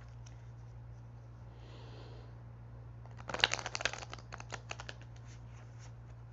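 Tarot cards being shuffled by hand: a quick run of rapid card clicks about three seconds in, thinning out into scattered flicks, over a steady low hum.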